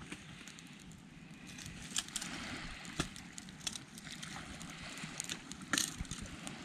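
Bonfire crackling, with irregular sharp pops and snaps over a steady hiss.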